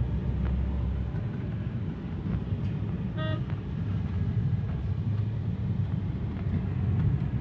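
Low, steady rumble of a car moving slowly through street traffic, heard from inside the cabin, with one short vehicle horn toot about three seconds in.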